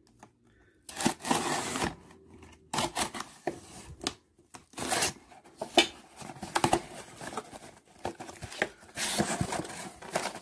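Packing tape on a cardboard shipping box being slit and torn open, in several short bursts of tearing and scraping. Near the end the cardboard flaps scrape as they are pulled open.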